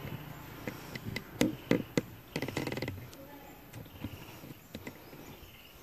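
A series of sharp clicks and knocks, loudest in a run about one and a half to three seconds in, then a few faint clicks.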